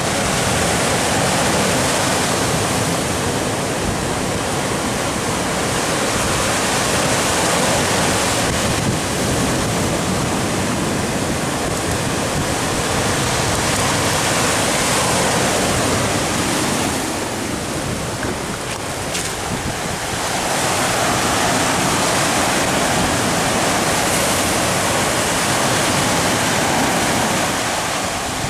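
Sea surf washing onto the shore and against the rocks, a steady rushing noise, with wind buffeting the microphone. It eases a little for a few seconds past the middle.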